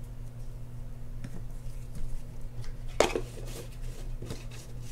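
Light clicks and taps of small metal fishing-reel parts being handled on a paper-covered bench. The sharpest click comes about three seconds in, followed by a few smaller ones, over a steady low hum.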